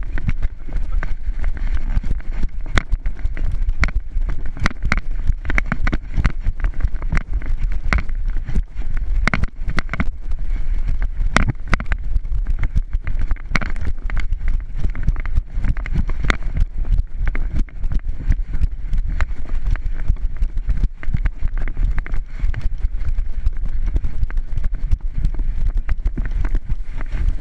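Rapid, irregular thumping and rubbing of a body-mounted action camera jolting with each running step, with wind buffeting the microphone.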